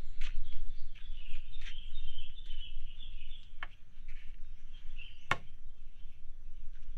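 Outdoor mangrove ambience: birds chirping steadily and busily over a low rumble, with a few scattered sharp clicks, one loud knock-like click about five seconds in.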